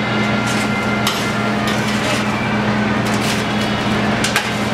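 A metal fry scoop scraping and knocking against a stainless steel fry-holding station as sweet potato fries are tossed and scooped, with a few sharp clanks, over the steady hum of kitchen equipment.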